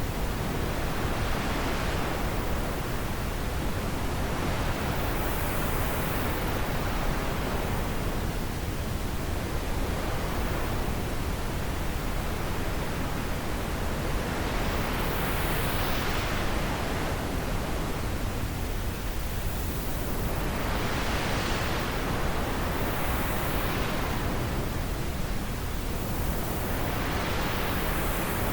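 Wind blowing steadily, a constant rush that swells and eases every few seconds.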